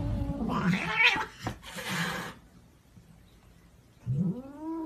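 Cats squabbling: short yowls and a hiss in the first two seconds, then, near the end, a long low yowl starts, rising in pitch and then holding.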